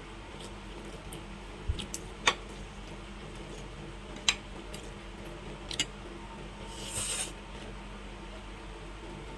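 Eating sounds: several sharp clicks of utensils on a plate, and a brief noisy burst of chewing about seven seconds in.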